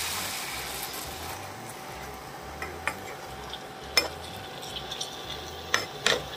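Bitter gourd and onion-tomato masala sizzling in a frying pan, the hiss dying down over the first second or so. A few sharp clicks of a spatula against the pan follow.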